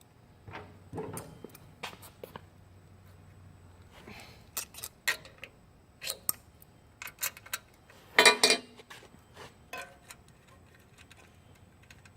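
Small metal clinks and clicks from a bicycle's chain stay bolts, washers and wrench being handled and fitted, spaced irregularly, with a louder clatter about eight seconds in.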